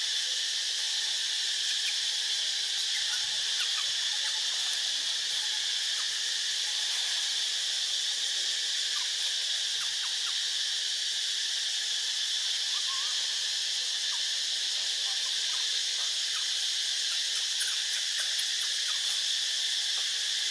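Steady, high-pitched chorus of insects that does not let up, with a few faint ticks over it.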